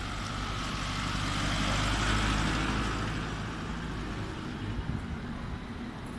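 Isuzu delivery truck driving past close by, its engine and tyre noise swelling to a peak about two seconds in and then fading into the steady hum of road traffic.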